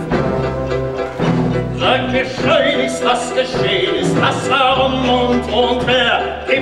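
Theatre orchestra playing the score of a stage musical: sustained low notes that break off and return, with a higher wavering melody coming in about two seconds in.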